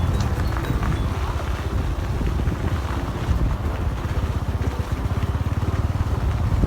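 A small engine running steadily, with a rapid low pulsing.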